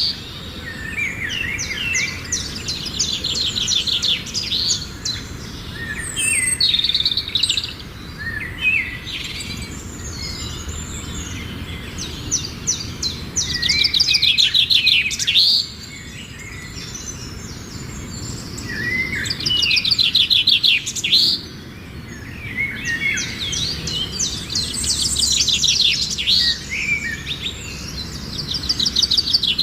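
Songbirds singing: bursts of fast trilled notes and short chirps, repeating every few seconds over a steady low background noise.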